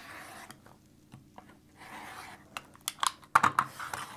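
Rotary cutter slicing through layers of quilting fabric along an acrylic ruler on a cutting mat: two short rasping cutting strokes, one at the start and one about two seconds in. These are followed by a cluster of sharp clicks and knocks as the cutter is set down on the table and the ruler is shifted.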